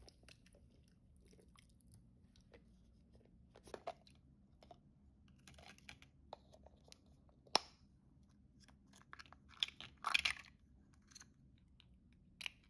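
Quiet handling of a wet, foam-covered plastic toy capsule: scattered soft crackles and clicks, with a sharp click about seven and a half seconds in and a louder burst of crackling around ten seconds in.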